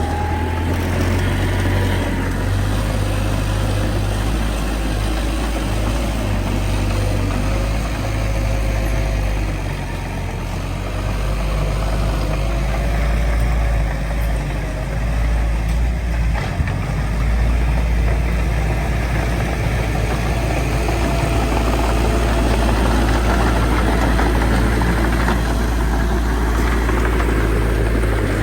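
Heavy diesel engine of earthmoving machinery running steadily, a deep low rumble with a faint wavering whine above it.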